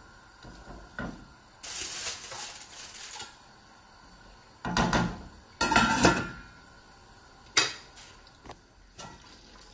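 A wooden spoon stirs chicken pieces in thick sauce in a large stainless steel pot. Then a stainless steel lid clatters onto the pot in two loud bursts around five and six seconds in, followed by a sharp knock and a few lighter taps.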